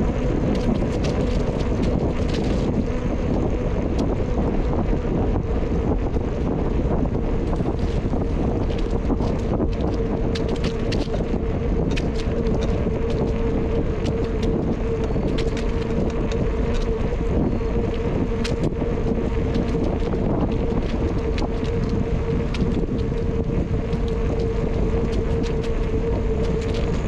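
Wind on the microphone and tyre noise from a bicycle rolling along a trail, with a steady hum and scattered clicks and rattles.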